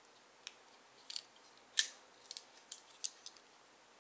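Scattered short, light clicks and ticks from handling the boxed card game, about a dozen of them, the loudest nearly two seconds in.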